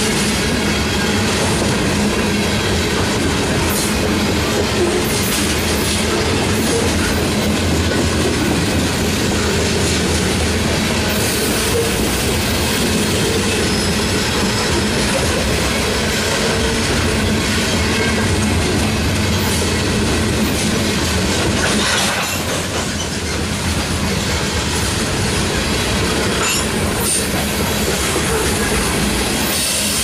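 Covered hopper cars of a grain train rolling steadily past close by: a continuous rumble and clatter of steel wheels on the rails.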